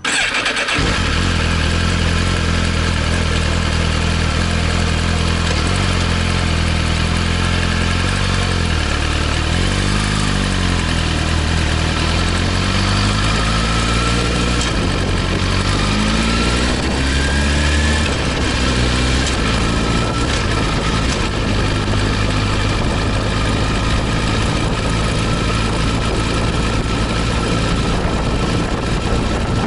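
Suzuki GSX-R1000R inline-four engine starting up and idling, then pulling away with revs rising and falling through the low gears. It settles into a steady cruise for the last ten seconds or so.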